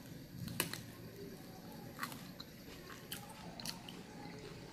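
A person biting into and chewing a sour ber (Indian jujube) fruit, with a few faint crisp crunches about a second apart.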